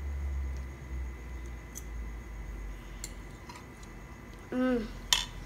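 A few faint clicks of a metal fork against a dinner plate. Near the end come a short hummed "mm" and then one sharp clink, the loudest sound.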